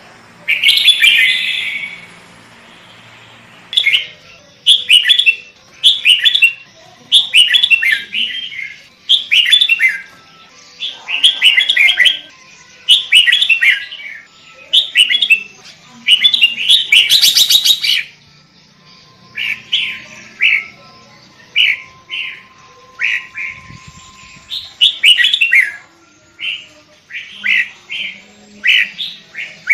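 Sooty-headed bulbul (kutilang) singing a long series of short, bubbly chirping phrases, about one a second with short gaps, one phrase about two-thirds of the way through louder and sharper than the rest.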